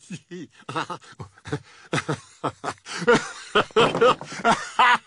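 A man giggling, held back at first, then breaking into louder, rhythmic laughter about three seconds in.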